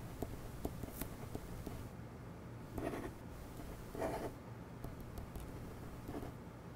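Ballpoint pen writing on a sheet of paper: faint short scratching strokes, the clearest about three and four seconds in as the pen draws a circle around a word.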